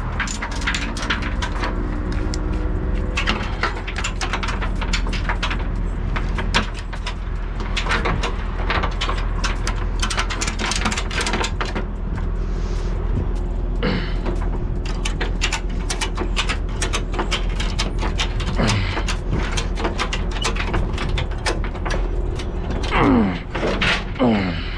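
Ratchet strap being cranked tight over a pickup's front wheel: runs of quick metal ratchet clicks, over a steady low rumble.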